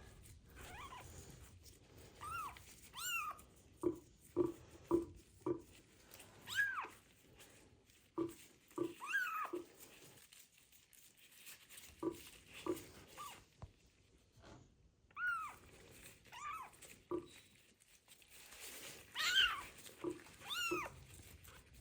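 A small kitten crying over and over, with drawn-out rising-and-falling meows and shorter, lower mews between them.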